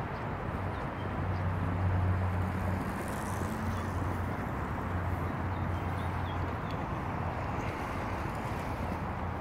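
Steady outdoor rumble with faint bird chirps in the second half.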